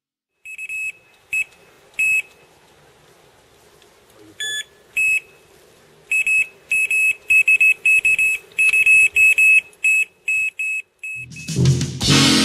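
Electronic carp bite alarm bleeping at one high pitch. It gives a few single bleeps, then about halfway through a fast run of bleeps as line is pulled from the rod: a fish taking the bait. Swing-jazz music comes in near the end.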